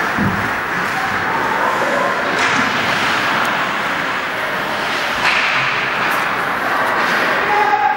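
Ice hockey game sounds in an ice arena: a steady wash of rink noise from skating and play, with a low thud right at the start.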